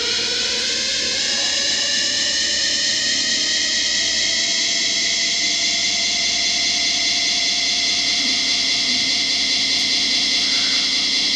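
A loud, steady hissing drone with a sweeping, whooshing quality; its bands of pitch slowly drift upward early on, like an electronic noise effect in an ambient soundtrack.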